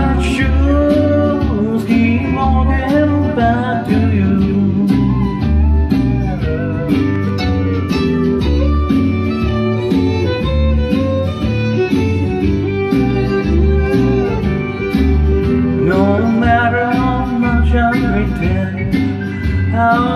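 A man singing into a microphone over a country-style backing track with guitar and a steady bass beat. His voice drops out for a guitar-led stretch in the middle and comes back in near the end.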